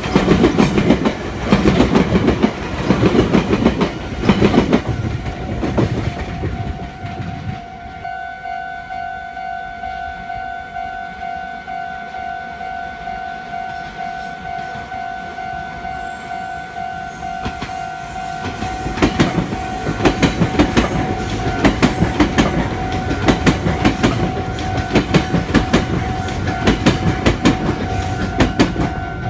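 Meitetsu electric commuter train passing, its wheels clattering fast over rail joints and points, dying away after about six seconds. About seven seconds in a level-crossing warning bell starts ringing steadily, and from about nineteen seconds a second Meitetsu train passes the crossing with loud clattering while the bell keeps ringing.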